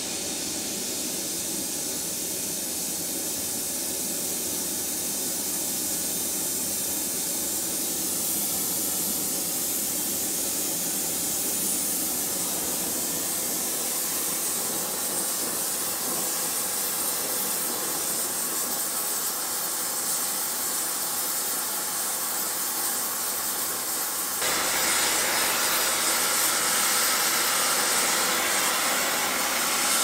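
Oxy-acetylene torch with a rosebud heating tip, its flame burning with a steady hiss while heating steel. The hiss grows slowly louder, then steps up suddenly into a louder, fuller rush about 24 seconds in.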